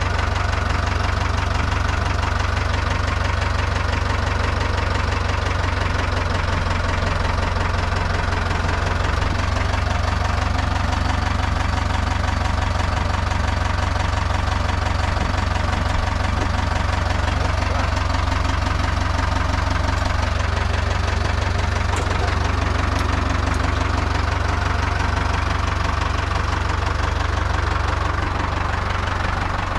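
Ford 5000 tractor engine running steadily at an even speed, with a strong low drone.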